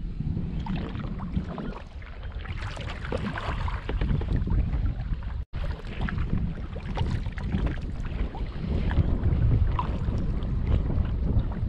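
Wind buffeting the microphone over water slapping and splashing against a kayak's hull as it moves across the lake. The sound cuts out for an instant about halfway through.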